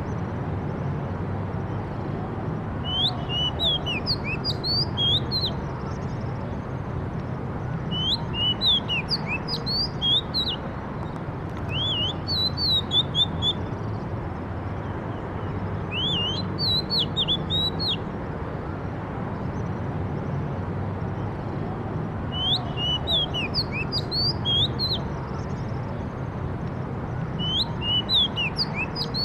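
A songbird singing in short phrases of quick, sharply sliding high chirps and whistles. The phrases come about every four to five seconds. Under them runs a steady low background rumble.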